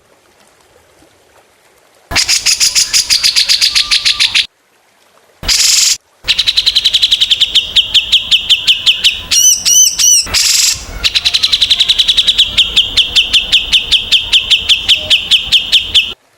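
Small songbird calls: long strings of sharp, rapid chirps repeated evenly, with a few arched whistled notes in the middle. The track is spliced, starting and stopping abruptly with short silent gaps between segments.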